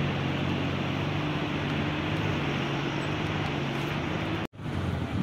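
Bus engine idling steadily with a constant low hum. The sound drops out for an instant about four and a half seconds in.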